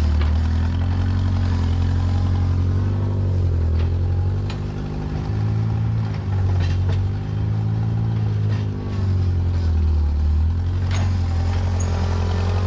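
Old tractor engine running steadily, its pitch shifting a little now and then, with a few sharp clicks and rattles.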